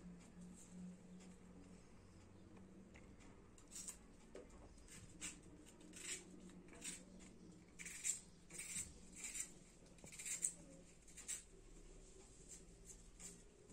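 Faint crisp crackles and snicks of a small knife peeling and cutting an onion held in the hand, irregular and a few a second, starting a few seconds in.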